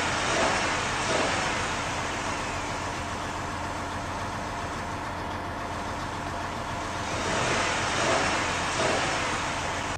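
Old flat-fender jeep driving hard through deep mud: the engine runs under load while the spinning tyres churn and spray mud, a steady rushing noise that swells again near the end.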